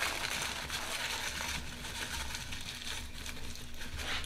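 Tissue paper crinkling and rustling softly as it is folded and pressed down by hand into a cardboard firework-shell hemisphere.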